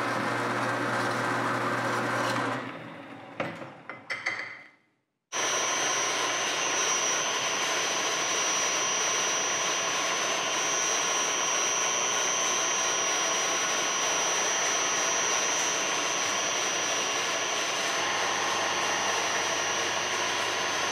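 Rockwell horizontal band saw running, fading out with a few clicks over the next couple of seconds. After a break of about half a second, a vertical milling machine starts up abruptly: an end mill makes a steady cleanup cut across the end of a brass bar, with a constant high whine.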